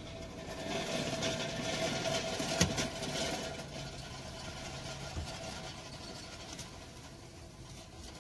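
Car engine and road noise heard inside the cabin as the car rolls forward at low speed, with a steady hum during the first few seconds. A sharp click about two and a half seconds in and a softer knock a little after five seconds.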